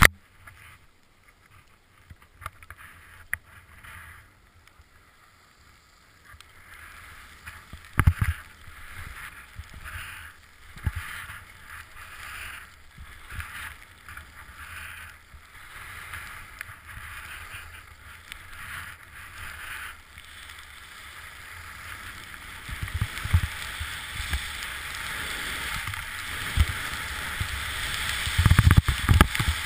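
Skis hissing and scraping over packed snow on a downhill run, with low thumps of wind buffeting the camera microphone. It is quiet for the first few seconds, then the hiss and the thumps grow louder through the second half.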